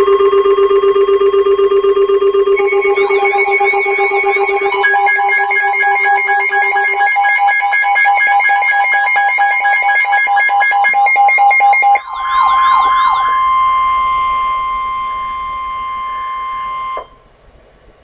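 Emergency alert tones: several alarm sounds layered together, steady tones with pulsing beeps and fast repeating sweeps. About twelve seconds in they give way to warbling glides and then a single steady tone, which cuts off about a second before the end.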